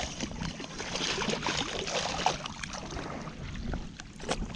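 Water splashing and sloshing around a kayak while a big largemouth bass is fought at the side of the boat, with a couple of sharper splashes near the end.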